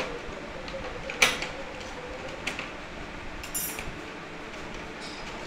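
Parts of a Mechanix metal construction kit, metal strips and plastic plates, clicking and clinking as they are picked from and set back into the plastic tray: a sharp click about a second in, a lighter one a little later, then a short ringing metallic rattle.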